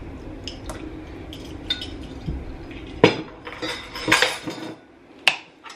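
Kitchen utensils clinking and knocking around a saucepan: light clicks with a sharper clack about three seconds in and another near the end, as a metal measuring spoon and bottle are handled and set down.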